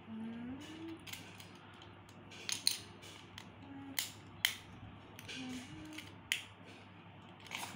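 Sharp clicks and snaps of a small die-cast crash toy car's detachable body pieces being pressed back into place by hand, four or five separate clicks spread over several seconds.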